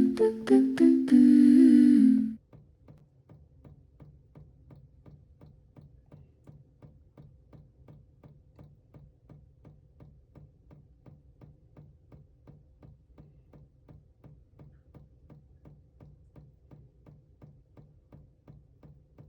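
Keyboard music playing a short phrase that ends on a held chord and cuts off about two seconds in, followed by faint, evenly spaced ticking at about three to four a second.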